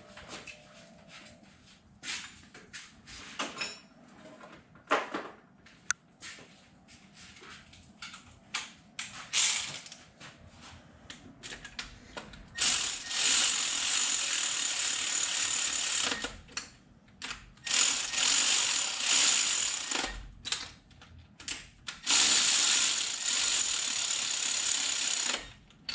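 Ratchet wrench running down the cylinder head bolts on a Datsun L16 engine, which had been left under-torqued. Scattered single clicks at first, then three long runs of rapid ratcheting, each a few seconds long.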